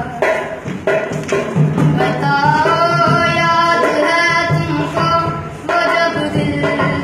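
Punjabi song: a man singing with music and drums.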